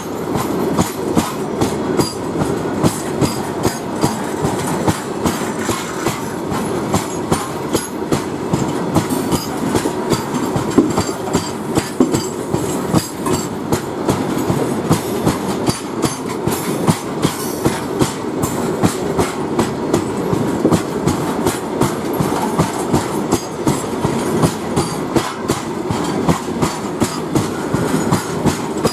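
A loaded coal freight train's wagons rolling past at speed, their wheels clacking over the rail joints in a steady, repeating rhythm over a continuous rumble.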